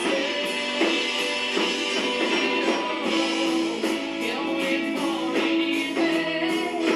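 Live rock band playing a slow song: guitar, keyboard and drums, with drum hits falling at a steady beat. The recording has almost no low end.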